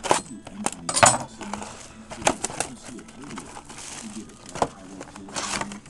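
Clear plastic shrink wrap being torn and crumpled off a sealed cardboard box, an irregular string of sharp crackles and crinkles.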